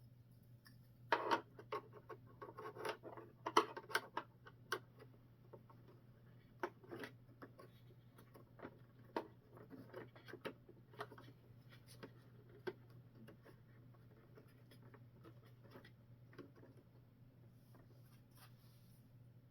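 Light clicks, taps and scratching of small plastic parts being handled, busiest for a few seconds about a second in, then sparser, over a steady low hum.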